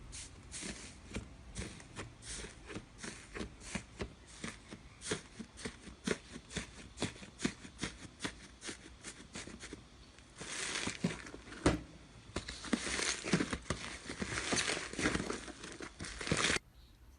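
Slime being squeezed and poked by hand, giving sticky clicks and pops about three times a second, then a denser stretch of crackling that cuts off suddenly near the end.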